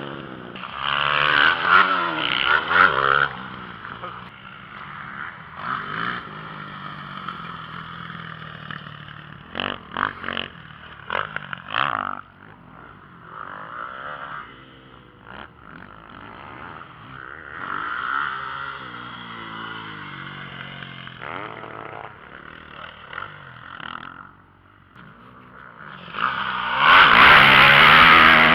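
Motocross dirt bike engines revving up and down as the bikes ride the track, loud twice, near the start and again near the end, and quieter in between. A few short sharp clacks come near the middle.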